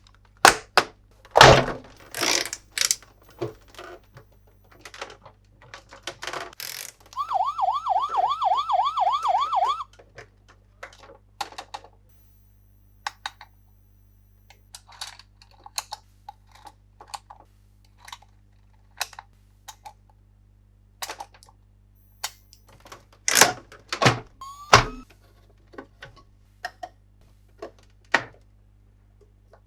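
Paw Patrol Police Cruiser toy playing its electronic siren, a fast warble of about four wobbles a second lasting about three seconds. Around it come many clicks and knocks of hard plastic toy parts being handled, with a few louder knocks near the start and toward the end.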